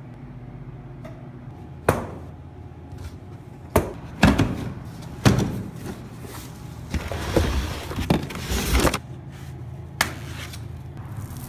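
A cardboard bike box being handled and opened: a series of sharp cardboard thuds and knocks, with a couple of seconds of rustling packaging in the middle and one more knock near the end.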